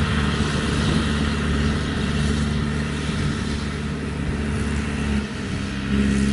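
Kubota 70 rice combine harvester's diesel engine and cutting and threshing gear running steadily under load as it cuts standing rice, dipping briefly about five seconds in and swelling again near the end.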